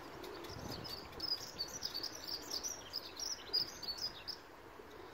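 A small songbird twittering: a quick run of short, high chirps that stops about four seconds in.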